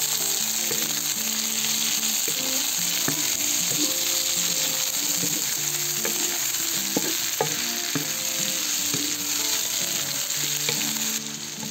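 Carrot and bell pepper strips sizzling steadily in hot oil in a cast-iron kazan, stirred with a wooden spatula that scrapes and ticks against the metal a few times.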